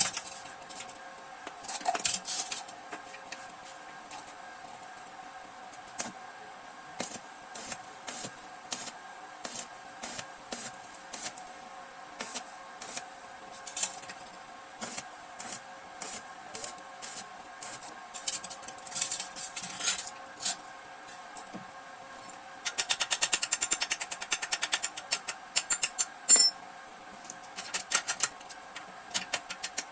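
Hand tools on metal during motorcycle exhaust work: scattered sharp clicks and taps, then a few seconds of fast, rapid clicking about three-quarters of the way through, over a faint steady hum.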